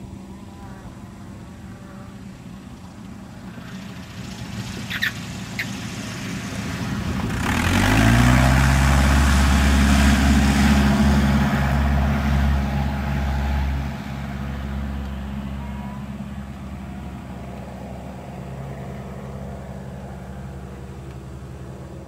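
Cessna light aircraft's piston engine and propeller: a low hum at first, then the throttle is opened about seven seconds in. The pitch rises quickly to a loud full-power drone, which holds for several seconds and then slowly fades as the plane climbs away on a go-around.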